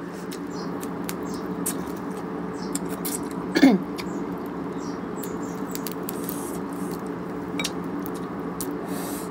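Cooked crab being pulled apart by hand: scattered small clicks and cracks of shell over a steady low hum. About three and a half seconds in, a brief squeak falling in pitch is the loudest sound.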